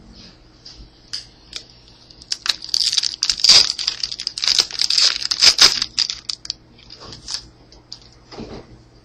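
A foil trading-card pack wrapper being torn open and crinkled by hand: a dense run of crackling and tearing for about four seconds in the middle, with lighter rustles and clicks before and after.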